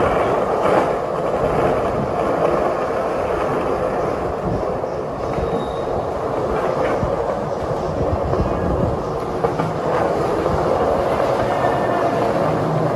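Skate wheels rolling steadily over street pavement, a continuous rumble with a few light clicks from bumps and seams.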